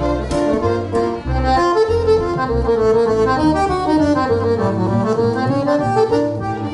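Gypsy-jazz swing played on accordion and double bass: the accordion carries a melodic line that falls and climbs back, over low double-bass notes about twice a second.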